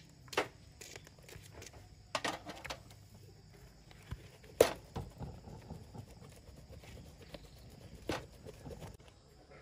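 A few scattered sharp knocks and taps over a faint background, the loudest about halfway through.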